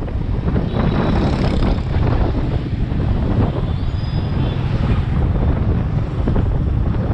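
Wind buffeting the microphone on a moving motor scooter, a steady low rumble with the scooter's running and street traffic blended underneath.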